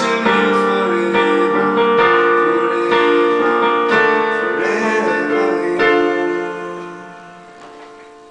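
Electronic keyboard played with a piano sound, chords and melody, with a young man's voice singing along in places. A last chord struck about six seconds in rings out and fades away.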